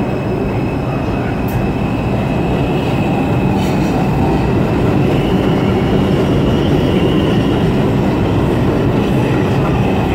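New York City Subway 4 train running along the platform close by: a steady rumble of wheels on rails with a thin high whine that rises a little about halfway through.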